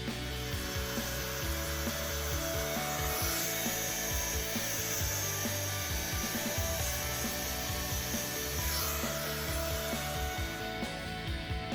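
Metal being ground with an abrasive power tool, a steady rasping noise that grows brighter and higher about three seconds in and eases back near nine seconds. It stops shortly before the end, with background music underneath.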